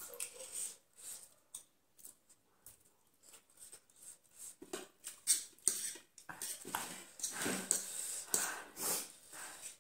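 Close-up eating sounds: chewing and slurping of spicy ramen, with forks and spoons clicking and scraping on plates. Sparse at first, busier in the second half.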